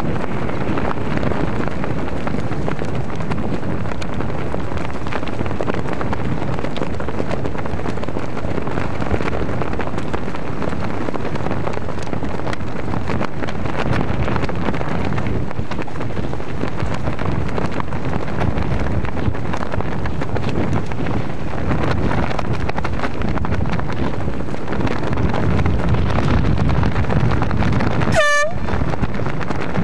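Steady rushing of wind on the microphone out on open water, with one short air-horn toot near the end.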